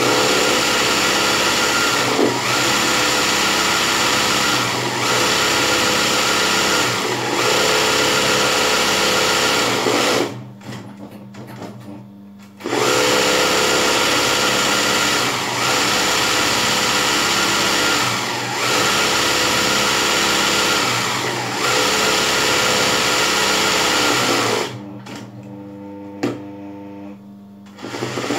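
Electric sewing machine stitching embroidery, running steadily in long runs. It stops for about two seconds, runs again, then stops near the end with a single click before starting once more.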